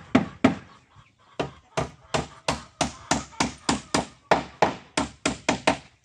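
Hand hammer striking wood again and again at a steady, quick pace, about three blows a second, with a short pause about half a second in.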